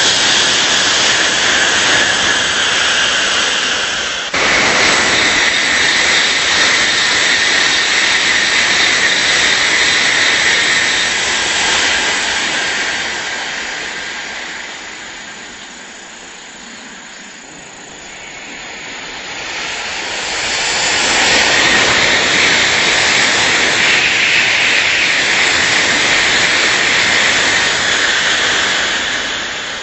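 Tokaido Shinkansen high-speed trains passing: a loud, steady rushing noise that changes abruptly about four seconds in. It fades away through the middle, then swells back up as the next train approaches.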